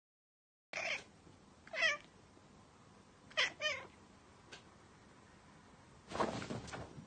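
Ginger cat meowing: several short, wavering meows, two in quick succession about three and a half seconds in, then a longer, lower meow near the end.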